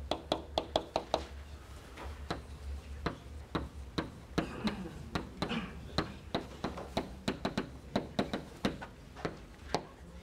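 Chalk tapping and clicking against a blackboard during writing. A quick run of taps comes in the first second, then single taps follow at uneven intervals as each letter and symbol is struck.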